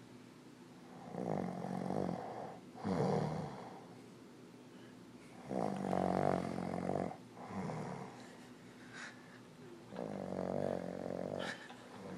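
An old man snoring, with three long snores about four to five seconds apart, each followed by a shorter breath sound.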